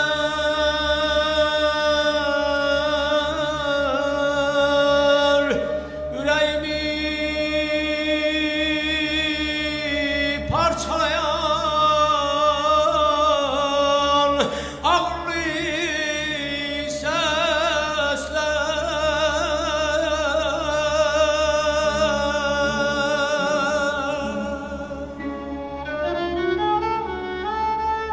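Male mugham singer singing long held notes with wavering, trilled ornaments, in phrases broken by short breaths, over a sustained low orchestral accompaniment. Near the end the voice falls away and a bowed string line steps upward.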